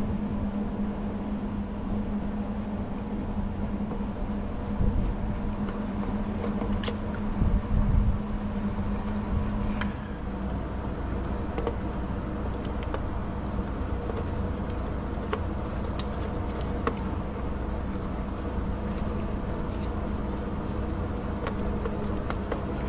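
A steady machine hum, its pitch changing to a lower drone about ten seconds in, with scattered light clicks and a couple of dull knocks as hands work on fittings around the truck engine.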